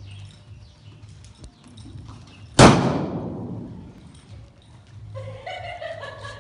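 A single .45-calibre gunshot, a sharp crack about two and a half seconds in, echoing off the walls of a metal-sided indoor arena and dying away over more than a second.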